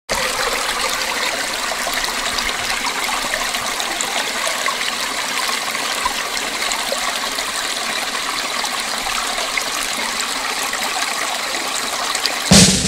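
Steady rushing of running water, like a stream, with no change in level; a single loud thump cuts in near the end.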